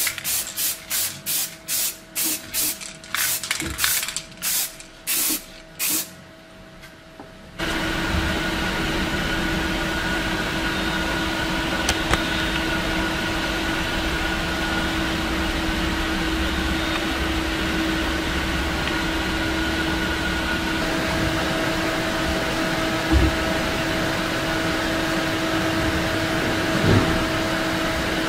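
Spray paint hissing from a spray can in short bursts, about two a second, as green paint goes onto a steel helmet. About seven seconds in this stops suddenly, and a steady machine-like hum with a few steady tones takes over, with two brief knocks near the end.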